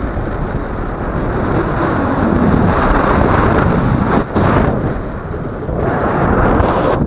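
Airflow rushing over the microphone of a camera on a paraglider in flight: steady wind buffeting that grows louder about two seconds in, with a brief drop just past the middle.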